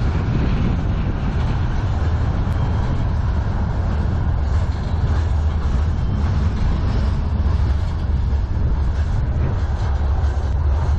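Freight cars of a CN manifest train rolling past close by, mostly covered hoppers and bulkhead flatcars: a steady rumble of steel wheels on the rail that holds even throughout.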